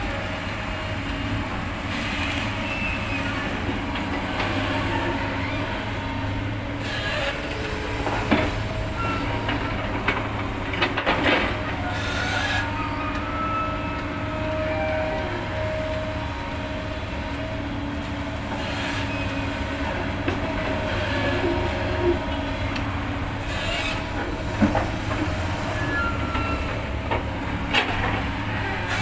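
Excavator at work: its diesel engine runs steadily under drawn-out metallic whines and squeals that come and go, with a few sharp knocks scattered through.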